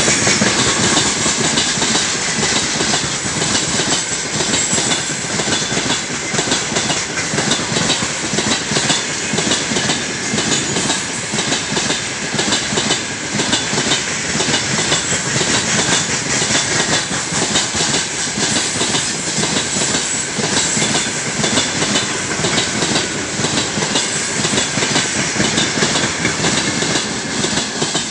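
Heavy freight train of open gondola wagons rolling past at close range: a steady rumble with the wheels clattering over the rail joints in a rapid, continuous clickety-clack.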